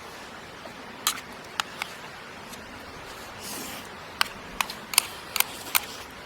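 Campfire crackling: about eight sharp, irregular pops over a steady hiss.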